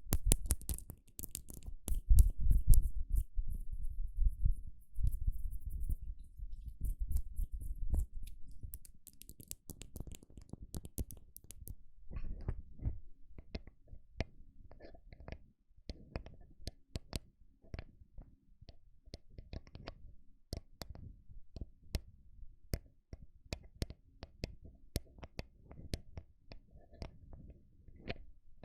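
ASMR slow tapping on a microphone: heavy, close, low thumps for the first several seconds, then lighter, sparser taps and clicks.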